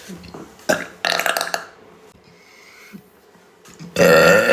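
A young woman belching: a short burp about a second in, then a long, loud one starting near the end.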